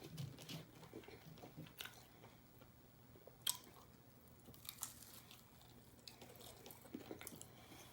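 Faint close-up chewing of fried chicken strips and fries, with a few soft crunches and mouth clicks scattered through.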